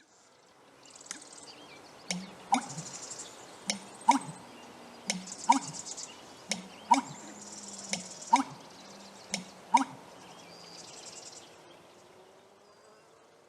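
American bittern's booming call, a low note with sharp gulping knocks, repeated about six times roughly a second and a half apart over a background of buzzing insects.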